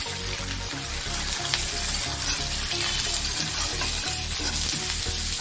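Chopped onions sizzling in hot oil in a kadai: a steady frying hiss, with light scrapes and clicks of a flat metal spatula stirring them.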